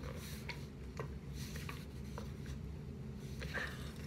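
Light handling noise from a half-gallon plastic HydroJug water jug in its fabric sleeve being moved about: faint rustles and a few small clicks over a low steady hum.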